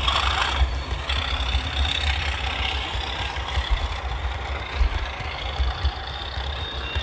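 Simulated Class 37 diesel engine sound from a Hornby HM7000 sound decoder, played through the model locomotive's small speaker, with the low rumble of model train wheels on the track. It grows slightly fainter as the train moves away.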